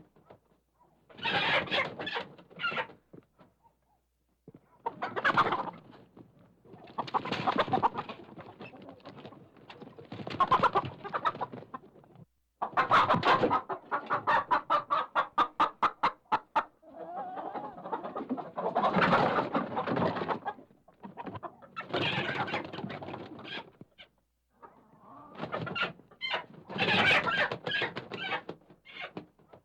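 Chicken squawking and cackling in alarm as it is being caught in its coop, in repeated loud bursts with short pauses and a fast rattling flurry about halfway through.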